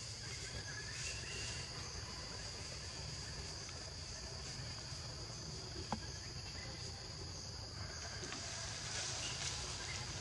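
Insects chirring in a steady high drone, with a low outdoor rumble beneath. A single sharp click about six seconds in.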